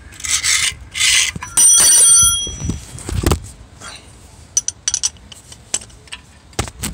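Steel hand tools (socket, extension bar and Torx bit) knocking and scraping against metal as they are fitted up to a flexplate bolt: a short scraping rustle twice, one loud ringing clank about two seconds in, a dull thump a second later, then a run of small metal taps and clicks.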